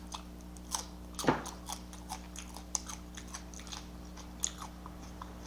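Close-miked chewing and wet mouth clicks while eating, with one louder bite about a second in, over a faint steady low hum.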